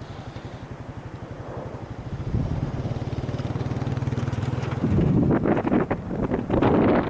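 Ground-blizzard wind buffeting the microphone in gusts, growing stronger from about five seconds in. Underneath, for the first few seconds, there is a fast, even low pulsing with a steady hum.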